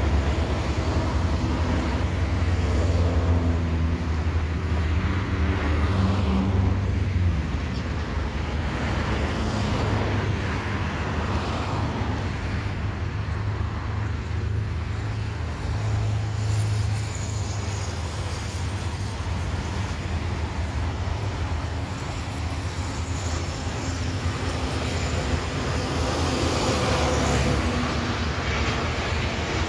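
Road traffic: vehicle engines running and passing, with a steady low engine hum underneath. Near the end the jet engines of an Airbus A321 on final approach become audible over the traffic.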